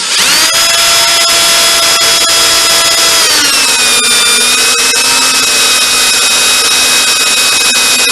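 Electric drill boring a pilot hole into a broken exhaust manifold flange bolt, ready for a bolt extractor. The motor and bit whine steadily, and the pitch drops about three seconds in.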